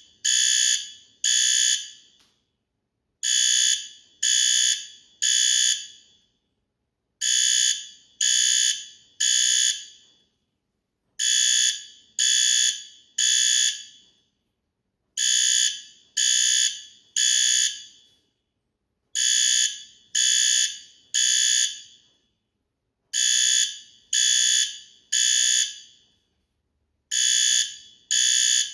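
Fire alarm sounding the temporal-three evacuation signal: three short, high-pitched blasts, then a pause, repeating about every four seconds.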